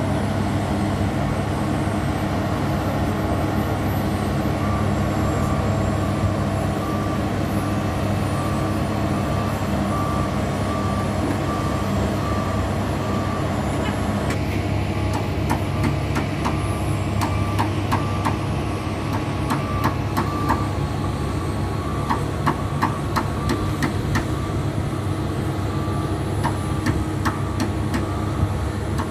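Heavy road-construction machinery running steadily, with a reversing alarm beeping about once a second for several seconds. In the second half, irregular metallic clanks and knocks come in with broken beeps.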